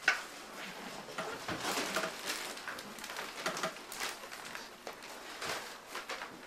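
A sharp click right at the start, then irregular rustling and shuffling as people move about the room.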